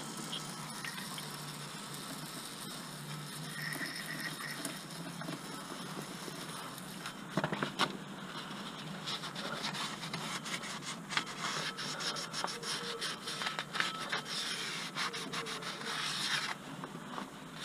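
A rag rubbing and scraping over the bare face of a Ford Focus 2.0 petrol flywheel as it is cleaned: an irregular scratchy rubbing that starts about seven seconds in and stops shortly before the end, over a steady background hum.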